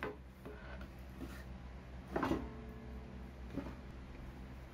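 A few knocks and clatters of wooden boards being handled on a table saw's metal top, the loudest about two seconds in with a short ringing tail and a fainter click later. A low steady hum runs underneath.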